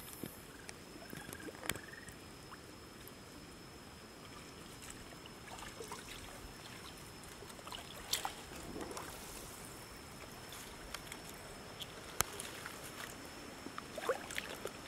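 Faint trickling and small splashes of shallow muddy water, with scattered light clicks and a few louder splashes near the end. A thin steady high tone sits underneath.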